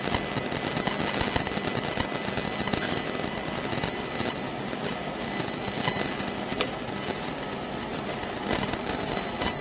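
SEPTA Market-Frankford Line M-4 subway car standing at a station platform: the steady hum and hiss of its ventilation and onboard equipment, with a thin steady high-pitched whine over it.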